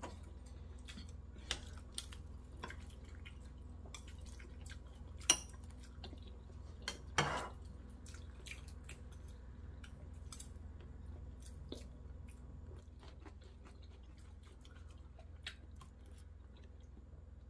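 Scattered clinks and clicks of dishes and utensils over a steady low hum, with a sharp clink about five seconds in and a short scraping rattle a couple of seconds later.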